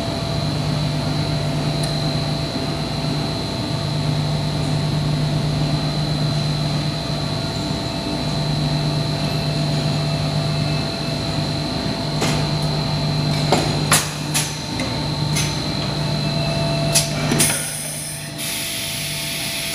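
HDPE bottle blow molding machine running, with a low hum that swells and dips every couple of seconds and a steady high whine. Past the middle come several sharp clanks of the mold and clamp moving, then a short rush of air hiss near the end as the mold opens on the blown bottles.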